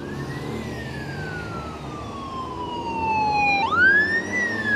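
Police siren wailing: a long slow fall in pitch, then a quick rise about three and a half seconds in, over the low rumble of passing vehicle engines.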